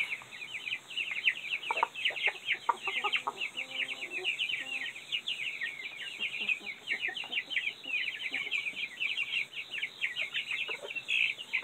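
Silkie chickens clucking over a constant rapid run of short high chirps, with a few lower drawn-out calls a couple of seconds in.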